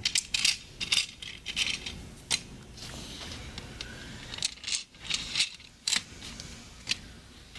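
White plastic curtain carriers being fed into a metal motorized H-rail drapery track: a run of light, sharp plastic-on-metal clicks, thickest in the first two seconds and again around five seconds in.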